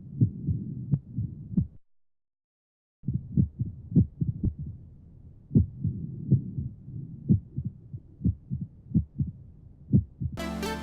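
Simulated heart sounds of atrial fibrillation from the FOMA P1060 heart and lung auscultation manikin: dull, irregularly spaced beats, broken by a short silence about two seconds in. Music comes in near the end.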